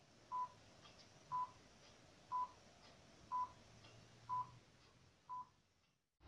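Film-leader countdown beeps from a video intro: six short beeps at the same high pitch, one each second, over a faint hiss.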